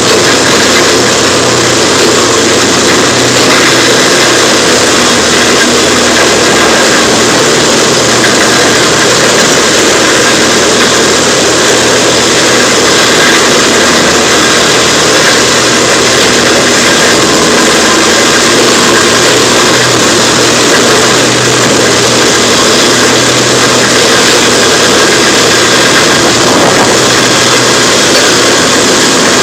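Large wood chipper running steadily: a loud, even engine drone mixed with dense grinding noise.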